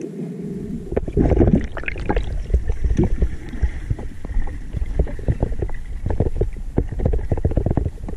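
Muffled underwater noise picked up by a camera in a waterproof housing: a steady low rumble of moving water with frequent knocks and clicks as the diver swims down to the rocks.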